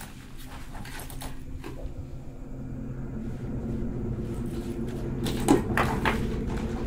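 A low steady hum of several held tones that slowly grows louder, with a few sharp knocks or clatters about five and a half seconds in.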